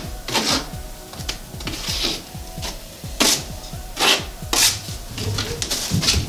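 A drywall knife scraping setting-type joint compound (hot mud) along a drywall outside corner in short, irregular strokes, buttering the corner with mud before the paper tape is bedded.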